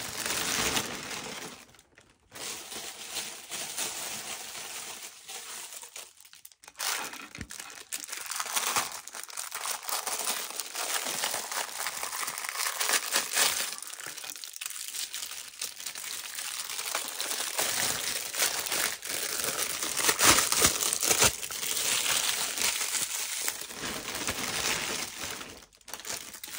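Clear plastic packaging crinkling and rustling as it is handled and pulled off a silicone alphabet mold, going on almost without a break and dropping out briefly twice in the first seven seconds.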